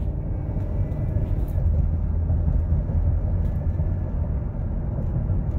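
Engine and road noise inside the cab of a Ford Expedition driving at about 40 mph, its V8 turning around 2,000 rpm with a steady low sound.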